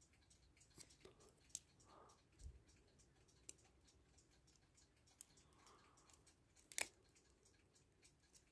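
A handful of faint, sharp metallic clicks as tweezers and clock-movement parts tap against the brass plates while the wheel pivots are coaxed into their holes during reassembly. The sharpest click comes near the end.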